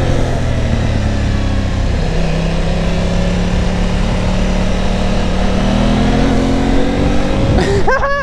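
Aprilia Tuono 660 Factory's parallel-twin engine on its stock exhaust, with wind rush on the rider's mic. It holds steady revs through the roundabout, then accelerates hard near the end: the revs climb quickly, then drop suddenly at an upshift.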